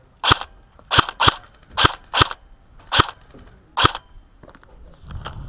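Airsoft gun fired in seven single shots at an uneven pace over about four seconds, each a sharp, loud report close to the microphone.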